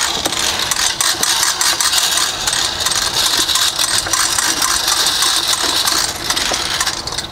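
Spring-driven hose reel retracting its hose, the drum turning under spring tension with the latch pawl clicking rapidly over the ratchet. The clicking thins out near the end as the drum slows.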